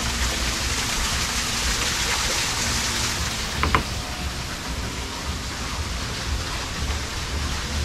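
Small waterfall splashing steadily down rocks in an even rush of water, with one brief high chirp a little past three and a half seconds in.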